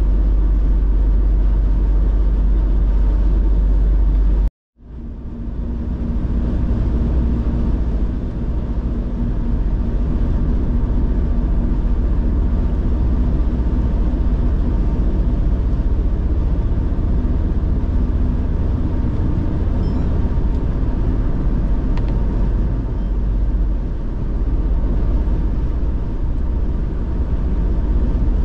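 Steady road noise of a car being driven: a continuous low rumble of engine and tyres. About four and a half seconds in, the sound drops out to silence for a split second, then returns.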